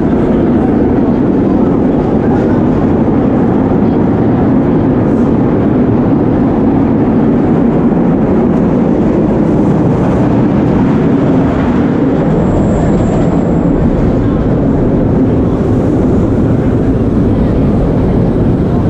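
Inside a 1930s BMT Standard subway car running along the track: a loud, steady rumble of wheels and traction motors.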